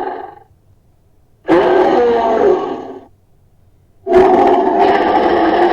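Sound-effect calls for the extinct elephant Palaeoloxodon namadicus: loud roaring calls, with one fading out at the start, another lasting about a second and a half from about a second and a half in, and a third beginning about four seconds in.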